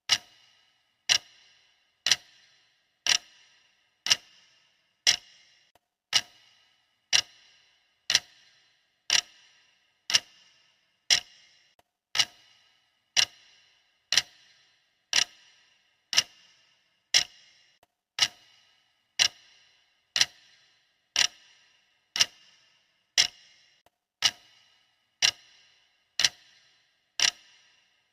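Clock ticking steadily, about one tick a second, each tick a sharp click with a brief high ring.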